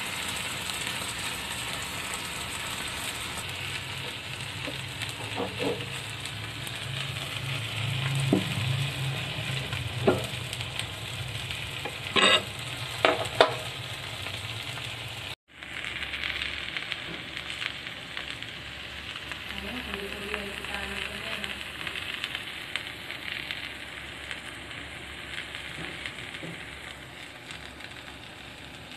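Rice, chicken and egg sizzling on a hot cast-iron sizzling plate, a steady hiss. A few sharp clinks come about a third to halfway through; the hiss briefly cuts out, then goes on a little softer.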